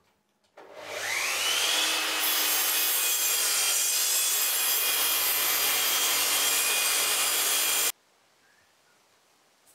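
Sliding compound mitre saw starting up with a rising whine as the motor spins up, then running steadily as the blade cuts through a wooden board; the sound cuts off suddenly about eight seconds in.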